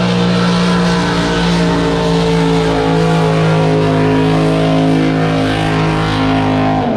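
Drag boat engine running loudly at a steady pitch, then dropping in pitch just before the end.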